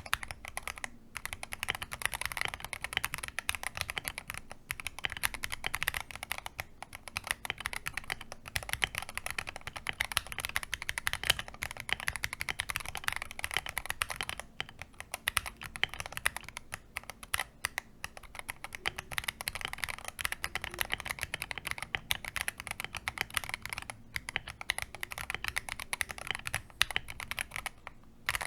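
Fast, continuous typing on a modded Akko MOD005 gasket-mounted mechanical keyboard: a dense run of key clacks with a few short pauses.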